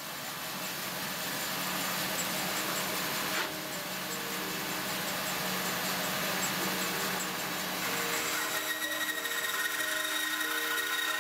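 Bandsaw running and cutting through a wooden block, a steady noisy whine whose tone shifts, with new higher whining tones, about eight seconds in.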